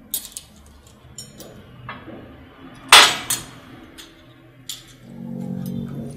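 Clinks and knocks of dishes and glassware being handled on a table, with one loud sharp clink about three seconds in; a low hum comes in near the end.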